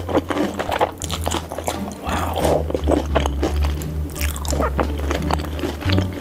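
Close-miked chewing of a coated Korean cheese corndog: irregular crunches of the fried crust and soft wet mouth sounds. Background music with steady low notes runs underneath.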